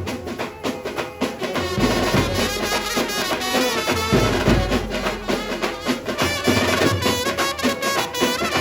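Dhumal band playing a Sawari dhun: saxophones carry the melody over steady drumming.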